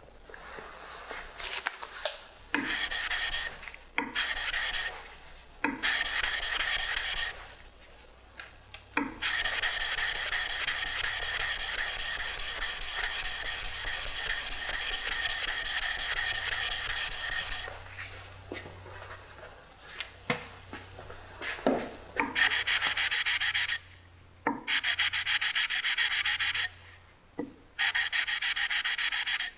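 Abrasive sanding of a knife: a series of scratchy passes that start and stop abruptly. Three short passes are followed by one long pass of about eight seconds, then three more passes near the end.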